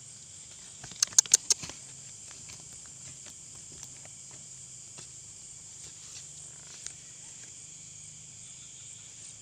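Night chorus of crickets, a steady high-pitched trill, with a quick run of four or five sharp clicks about a second in.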